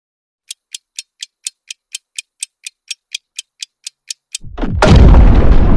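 Quiz countdown sound effect: sharp clock-like ticks, about four a second, for several seconds, then a loud, deep boom that rumbles on.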